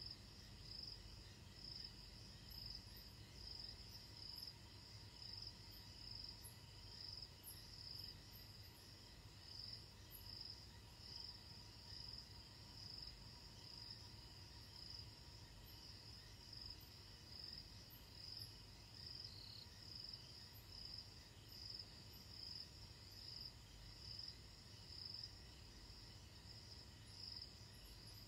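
Night insects, crickets, chirping in a steady pulsing rhythm, swelling about once a second, with a faint low rumble underneath.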